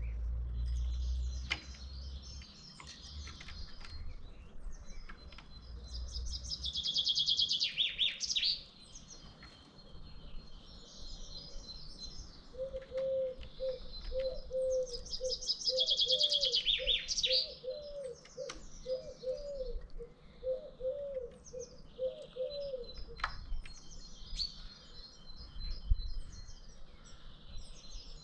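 Songbirds singing: high, quick trilling songs that end in falling notes, loudest twice, around seven and sixteen seconds in. A lower clear note repeats about twice a second through the middle, and there is a sharp knock near the end.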